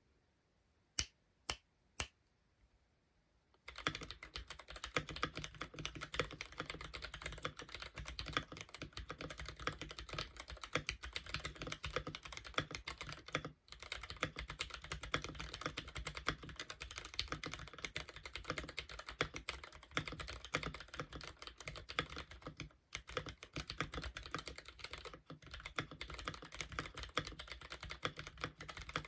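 Womier K66 mechanical keyboard with Gateron Milky Black linear switches: three single keystrokes, then fast continuous typing from about four seconds in, with two brief pauses.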